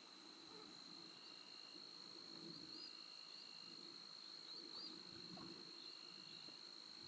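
Faint insect chorus: one insect trilling on a steady high note, with shorter, lower buzzes from another insect coming in every couple of seconds.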